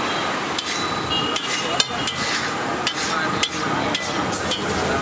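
Flat metal spatula chopping and tapping on a large flat street-food griddle (tawa) through omelette egg: about eight sharp clinks at uneven intervals, some ringing briefly, over the steady sizzle of egg frying.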